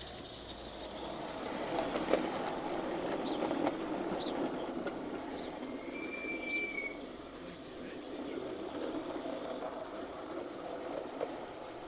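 A small 16mm-scale live-steam garden railway train running along the track: a steady rolling noise with a few light clicks. There is a brief steady high tone about six seconds in.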